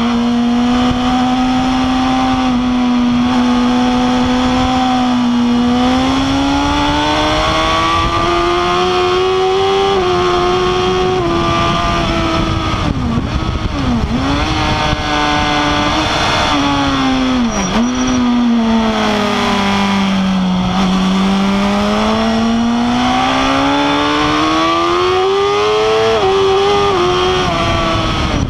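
Suzuki GSX-R 1000 K8's inline-four engine ridden hard, heard from the rider's seat over wind rush. The engine note holds high, climbs, falls and climbs again through the corners, with a few quick drops and recoveries in pitch near the middle as gears change.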